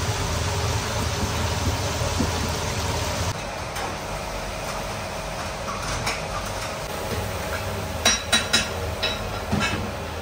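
Steady mechanical hum of kitchen equipment, a little quieter after about three seconds in. Near the end, a quick run of sharp metallic clinks, like utensils or metal trays knocking together.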